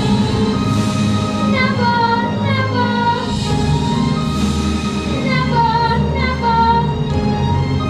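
A woman singing long, gliding notes over steady orchestral accompaniment.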